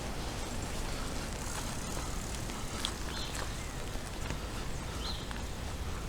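Steady hiss of rain falling outdoors, with a few faint short high chirps.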